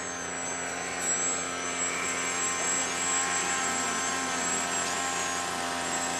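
Electric motor and propeller of a Shock Fly radio-controlled aerobatic plane flying low manoeuvres: a steady running sound with a high whine that wavers up and down with the throttle.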